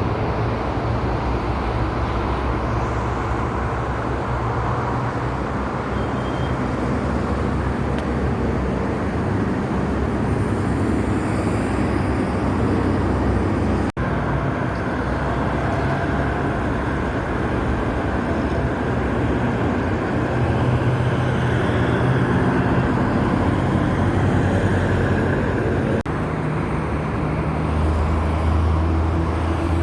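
Road traffic passing steadily, a continuous noise of tyres and engine hum. The sound breaks off abruptly and resumes about 14 and 26 seconds in.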